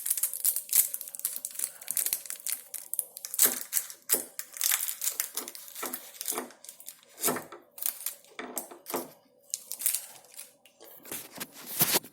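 Plastic wrapping of a dishwasher tablet crinkling and tearing as it is handled and opened, in quick irregular crackles.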